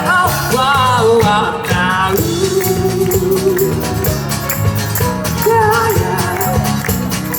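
Live pop band playing with a steady beat: an instrumental passage between sung lines.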